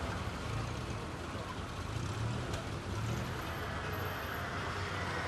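Motor vehicle engines running steadily, a low rumble under outdoor noise.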